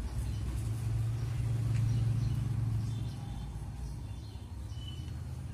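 A low, engine-like rumble that swells over the first three seconds and then eases off, with faint bird chirps.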